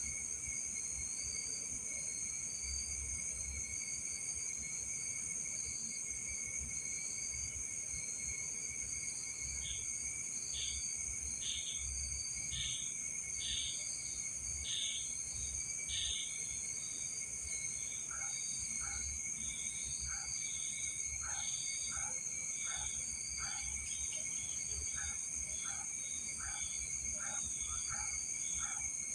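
Night chorus of crickets and other insects: steady, high-pitched trilling. From about ten seconds in, evenly repeated short chirps join it, at first higher and then lower in pitch, about two a second.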